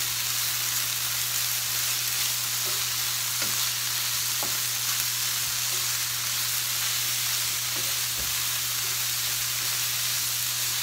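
Diced chicken sizzling in butter in a frying pan, with a spatula stirring and scraping the pieces now and then. A steady low hum runs underneath.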